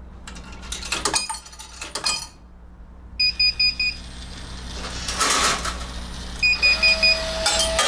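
A Laurel drop-shelf vending machine's electronic control beeping in two quick runs of about five short, high beeps, a few seconds apart, with a few clicks before them. A steady hum starts near the end.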